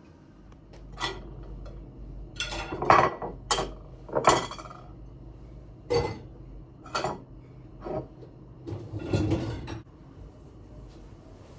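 Kitchenware being handled: a run of about ten sharp clinks and knocks, like dishes and cutlery set down and moved, some ringing briefly, over a faint low hum.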